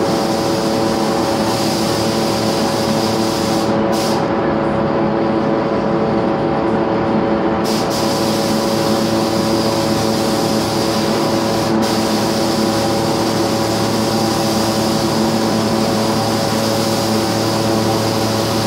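Compressed-air hiss of a gravity-feed paint spray gun applying paint, over a steady machine hum with several fixed tones. For a few seconds, from about four seconds in, the highest part of the hiss thins, then comes back.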